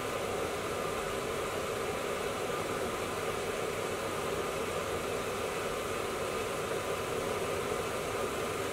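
Curry sizzling in a pan over a gas burner, a steady hiss with no stirring, as the gravy is left to cook.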